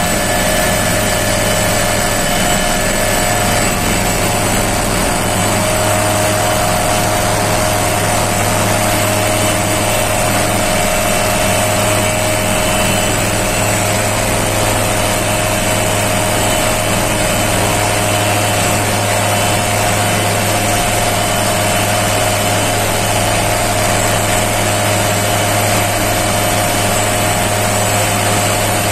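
Army helicopter hovering low: a steady turbine whine over constant rotor noise, unchanging in pitch.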